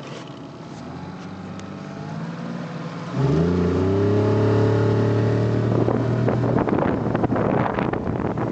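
Honda BF30 four-stroke outboard motor running low, then opened up about three seconds in: it gets suddenly louder and its pitch rises and holds as the boat gets under way. From about six seconds, splashing water and wind noise rise over the motor.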